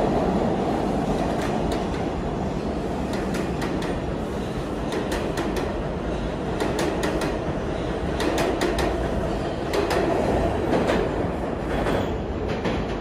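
R160 New York City subway train running past the platform as it leaves the station: a steady rumble of motors and wheels with many sharp clicks as the wheels cross rail joints.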